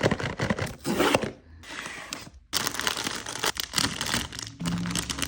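Blind-box toy packaging being torn open and crinkled by hand, in several stretches of tearing and rustling with short pauses between.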